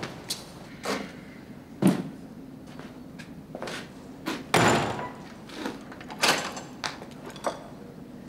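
Heavy prison cell door being worked: a string of clanks and knocks from the door and its bolts. The loudest come about two seconds in and just past halfway, the second a slam that rings on briefly.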